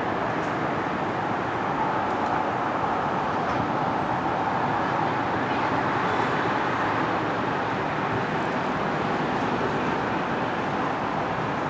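Steady running noise of a moving vehicle: an even rumble and rush with no breaks, and a faint held tone in it.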